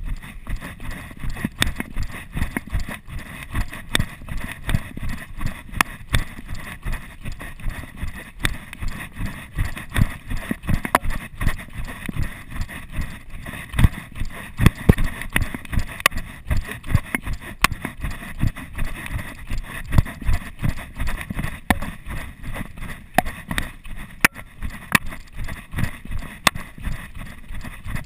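Footfalls of someone running down a dirt trail, heard as quick, uneven thuds and knocks through a chest-mounted GoPro Hero 2 that jolts with each stride.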